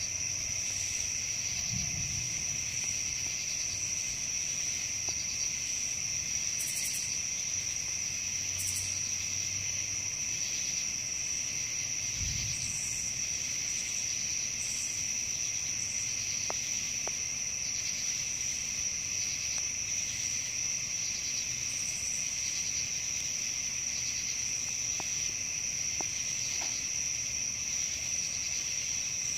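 Steady night chorus of crickets and other insects, a continuous high shrill in two pitches.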